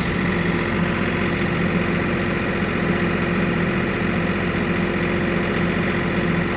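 Tractor engine idling steadily at an even speed.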